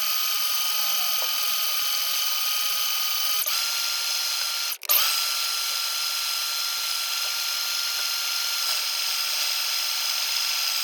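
Electric mixer motor running at a steady speed while stirring a batch of clear slime, with a steady whine. It cuts out for a moment about five seconds in, then carries on as before.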